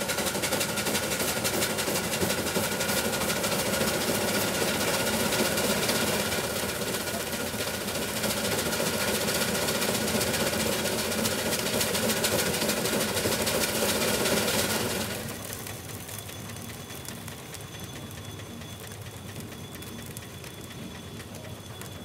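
Reeves 13 HP steam traction engine driving a 1903 Port Huron sawmill by flat belt. For about fifteen seconds the mill runs loud and steady under load, with a steady whine, most likely the saw in a cut. It then drops suddenly to the quieter running of the engine and mill turning free.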